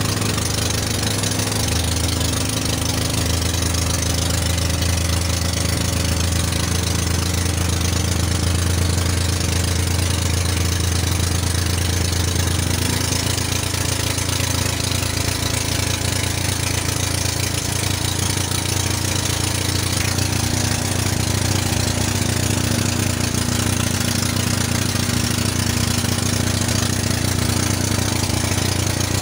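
Inboard engine of a motorized outrigger fishing boat (bangka) running steadily under way. Its note shifts slightly about thirteen seconds in.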